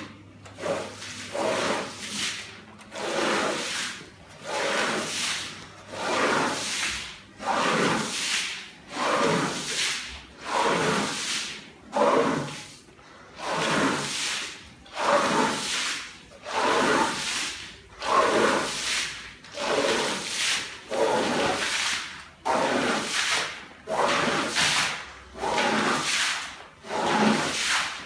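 Long-handled squeegee pushed hard across a soaking wet rug, each stroke a rushing swish of soapy water, about once a second in a steady rhythm.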